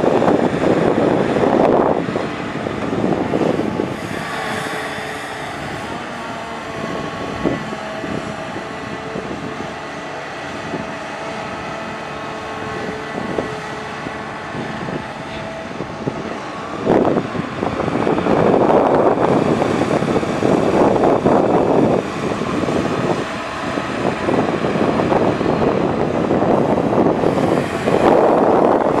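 Caterpillar 320D hydraulic excavator at work: its diesel engine and hydraulic pump run with a steady whine. The machine grows much louder in spells near the start, a little after the middle, and near the end, as it works under load digging and lifting with the bucket.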